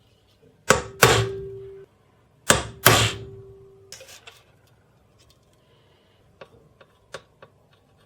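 Two pairs of sharp metal knocks, each pair leaving a ringing tone that dies away over about a second, then a few light clicks near the end.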